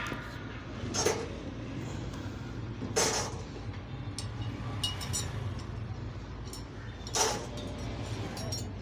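A flat hand scraper scraping and clinking as it spreads thick white putty (resin with aerosil and calcium powder) into a gel-coated fiberglass mould, with three sharp strikes about a second, three seconds and seven seconds in. A steady low hum runs underneath.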